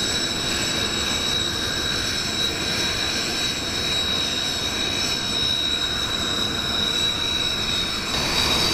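Kawasaki T-4 jet trainer's twin turbofan engines running at low power as it begins to taxi: a steady high whine over a continuous rumble, getting slightly louder about eight seconds in.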